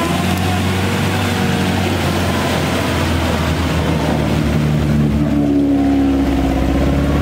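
Toyota Land Cruiser engine running hard under load while the 4WD sits bogged deep in a muddy water hole, with water churning around it; the revs lift about five seconds in.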